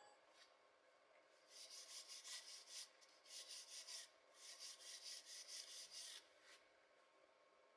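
Rapid back-and-forth scraping strokes on a hard surface, in three bursts of one to two seconds each, with short pauses between them.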